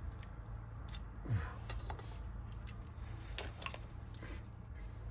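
Small metal clicks and taps of a car door lock cylinder and its wafers being handled, with one dull knock about a second in, over a low steady hum.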